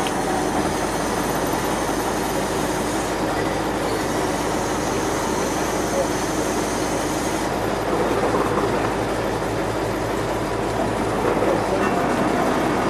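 Truck crane's engine running steadily under load while it lowers a rusted T-34 tank turret on its chains onto wooden beams.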